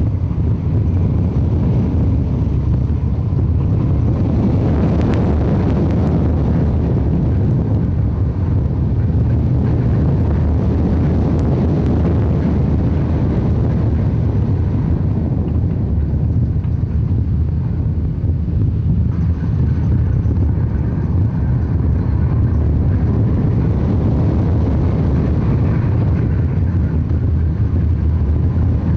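Steel roller coaster train running at speed, heard from on board: a steady loud rumble of wheels on the track mixed with wind buffeting the microphone.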